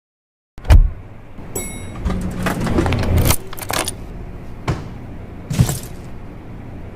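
A loud thump about half a second in, then several seconds of clattering, jangling noise broken by a few sharp knocks.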